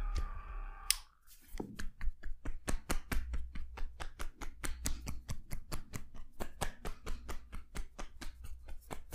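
Hacking massage: the edges of the hands chop against the body in a fast, even rhythm of about five or six strikes a second.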